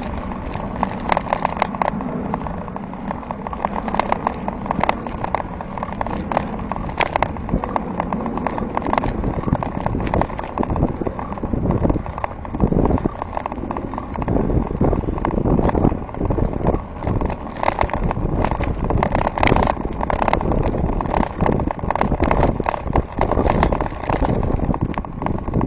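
Bicycle ridden along a tarmac path, heard through a camera mounted on its handlebars: a constant rumble of tyres and vibration with frequent short rattling knocks as the bike goes over the surface.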